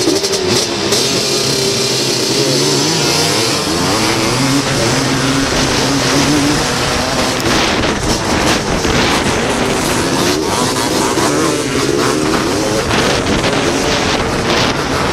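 Onboard sound of a racing ATC three-wheeler's engine, loud throughout, its pitch rising and falling as the rider accelerates, shifts and backs off around the track.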